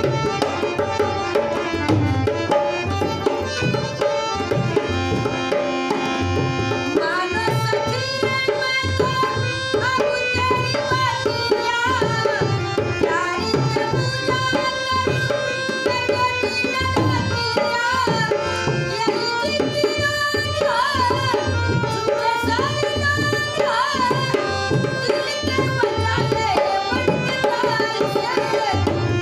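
A dholak, the rope-laced two-headed barrel drum, beats a steady rhythm under a harmonium's held reed notes. About seven seconds in, an elderly woman's singing voice joins them.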